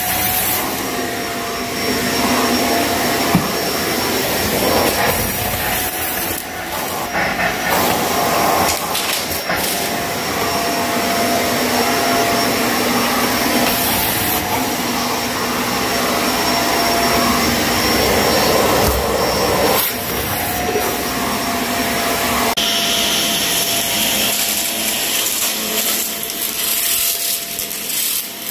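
Shark vacuum cleaner running over a dirty carpet with a steady motor whine, broken now and then by short crackles of debris being sucked up.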